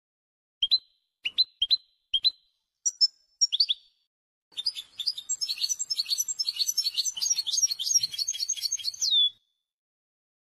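European goldfinch singing: about six short, separate rising call notes, then a fast, continuous twittering song of about five seconds that ends in a drawn-out note dropping in pitch, after which the song stops.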